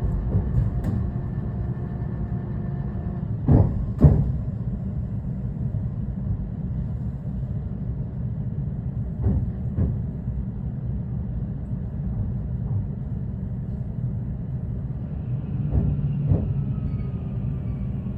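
Inside a 223 series electric train running slowly: a steady low rumble with three pairs of wheel clacks as the bogies pass over rail joints, spaced about six seconds apart. Near the end a thin traction-motor whine falls steadily in pitch as the train slows.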